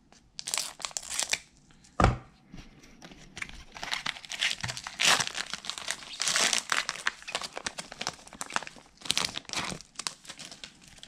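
Trading-card pack wrapper crinkling and tearing as it is opened by gloved hands and the cards are pulled out, in many irregular rustles. A single thump about two seconds in.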